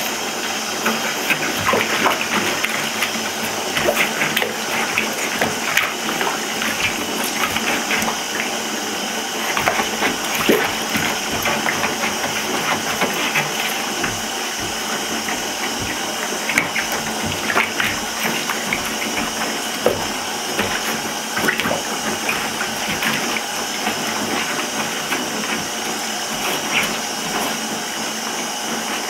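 Water running steadily into a bathtub, with small splashes and drips as sneakers shift in the shallow water.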